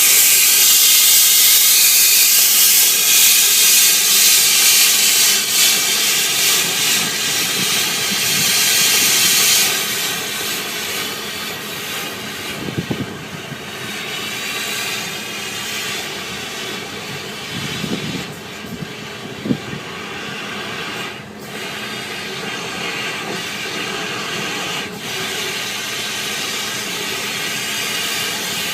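Motor-driven air mover, such as a blower or vacuum, running steadily during dryer vent cleaning, with a loud rush of air over a steady motor tone. The air rush drops after about ten seconds and then holds steady. A few short knocks come around the middle.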